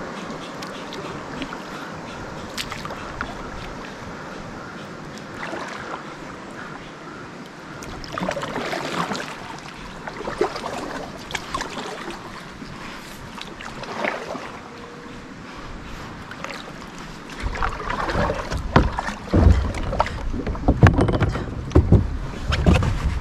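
Kayak paddling on a river: paddle strokes splashing and dripping in the water, with scattered sharp ticks. About three-quarters of the way in, strong low rumbling gusts of wind on the microphone come in and are the loudest sound.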